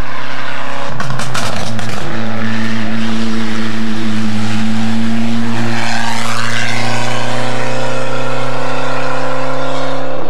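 Ford Escort RS Cosworth rally car engine running hard at high revs up a hill climb. A few sharp cracks come about a second in, then a held engine note climbs slowly in pitch as the car pulls uphill.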